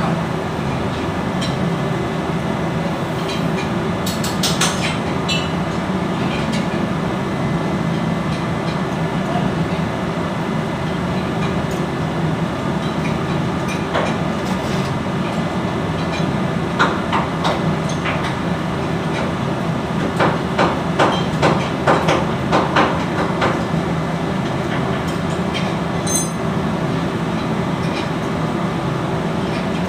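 Hammer-like taps and knocks on metal, a few scattered strikes and then a run of about three a second around twenty seconds in, over a steady low machinery hum.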